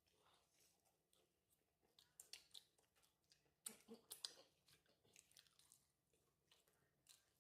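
Faint, close chewing of nachos: crisp tortilla-chip crunches come in irregular bites, loudest in a cluster about four seconds in.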